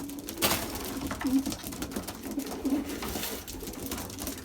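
Young racing pigeons cooing, low coos coming every second or so, with a few short rustling noises in between.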